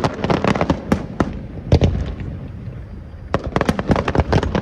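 Fireworks display going off: a quick run of sharp bangs and crackles, one heavy boom a little under two seconds in, a short lull, then another rapid flurry of bangs near the end.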